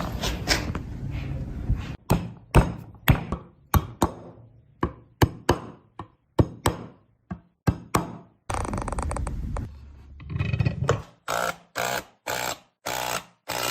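Workshop sounds: a run of sharp knocks, roughly two a second, like a hammer or mallet striking wood. Stretches of steady noise come before and after them.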